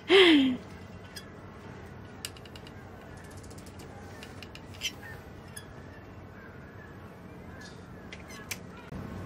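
A short vocal sound falling in pitch right at the start, then faint scattered handling clicks with a brief run of small ratchet-like ticks about three seconds in, from hands working on the hatch.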